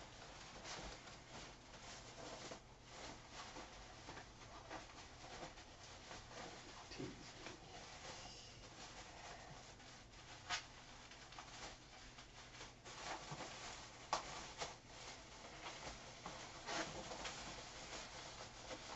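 Faint rustling of a black bag being handled and opened, with a few sharper crackles along the way.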